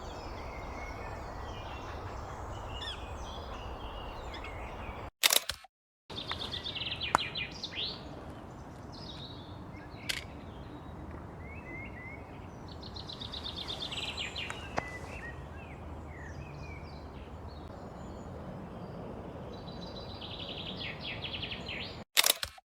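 Songbirds singing outdoors over a steady background hiss: scattered high chirps and several rapid trills. There are two sharp clicks with brief dropouts, about five seconds in and near the end.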